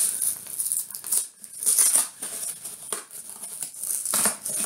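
A cardboard shipping box being pulled and torn open by hand: irregular bursts of scraping and ripping cardboard.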